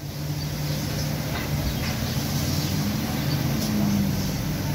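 A motor vehicle engine running steadily with a low hum, its pitch rising a little about three seconds in.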